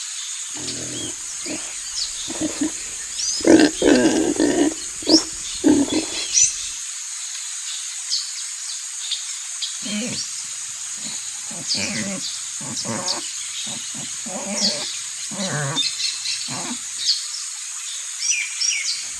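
Short, rough animal calls in two bouts, the first loudest about three to five seconds in and the second from about ten to seventeen seconds, with birds chirping throughout.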